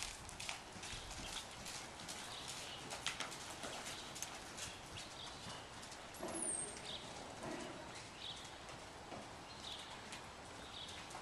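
Hoofbeats of a ridden horse moving over the soft sand footing of an indoor arena, a quick run of dull thuds that is clearest in the first few seconds and then grows fainter as the horse moves away.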